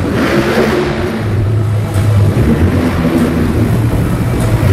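Monster truck engines running loud in an indoor arena, a steady deep engine sound with no break.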